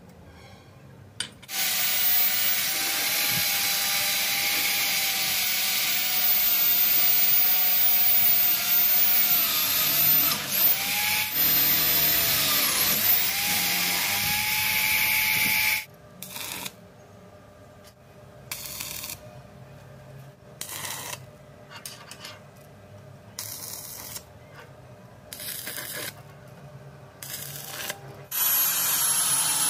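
Electric drill boring through a steel tube, a steady whine whose pitch sags and recovers a few times as the bit bites. After it stops come a dozen short bursts of arc-welding crackle, and near the end a loud steady noise starts.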